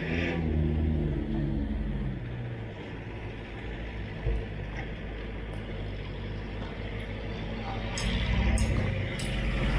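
Street traffic: a vehicle's engine hum fades away over the first couple of seconds, then a motorcycle engine grows louder as it passes close near the end, with a few sharp clicks.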